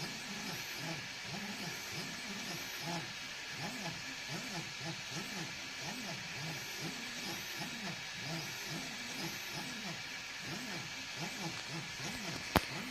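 EasyThreed K10 3D printer printing: its stepper motors sound in short rising-and-falling tones, about two a second, as the print head moves back and forth, over a steady hiss. One sharp click near the end.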